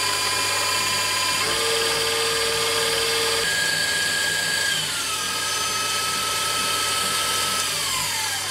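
KitchenAid Professional 5 Plus stand mixer whipping egg whites with its wire whisk, a steady motor whine with the whisk whirring in the steel bowl as the whites foam toward soft peaks. The pitch of the whine steps a few times, and near the end it falls away as the motor winds down.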